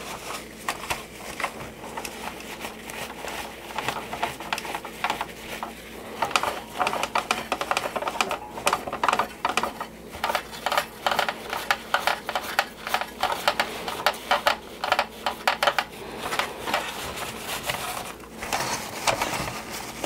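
A cloth rag rubbing over the hard plastic shell of a 1983 GI Joe Skystriker toy jet in quick, repeated strokes, busiest in the middle and easing briefly near the end. It is the step of working a plastic-restoring product onto the toy, to be left on and wiped off later.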